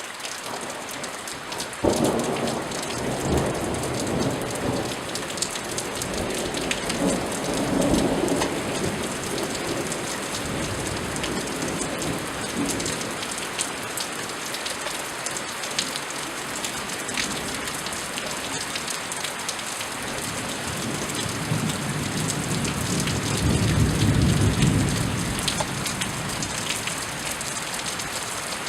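Steady rain falling, with individual drops ticking, and thunder: a sharp crack about two seconds in that rolls into a rumble lasting several seconds. A second, deeper rumble builds and fades later on.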